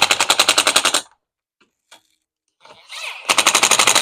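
Power impact driver spinning up and then hammering in rapid rattling bursts as it drives the screws of a Stihl FS55 RC trimmer's engine housing: one burst about a second long at the start and a second shorter one near the end.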